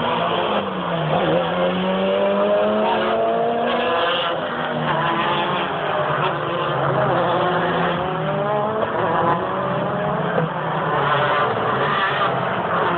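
BTCC touring cars racing past at high revs, one after another, their engine notes overlapping and rising and falling in pitch as they accelerate and go by.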